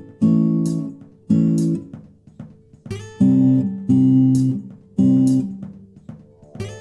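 Background music: strummed guitar chords with sharp attacks, about one a second, in a steady rhythm.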